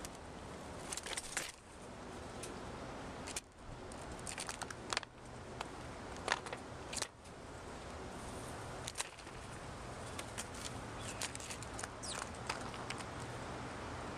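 Irregular light clicks and taps from a blue jay handling peanuts in the shell on a plastic platform feeder, its bill and feet knocking the nuts and the dish, over a steady outdoor background hiss.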